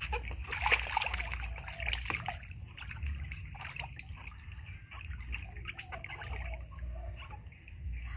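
Water splashing and sloshing in a plastic tub as a baby monkey paddles and swims in it. The splashing is busiest in the first two or three seconds, then quieter.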